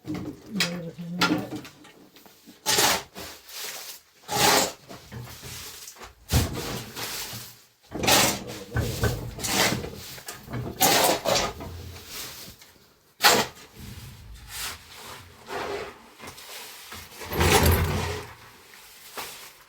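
Irregular scraping and rubbing strokes, a dozen or more, each under a second, with short gaps between them.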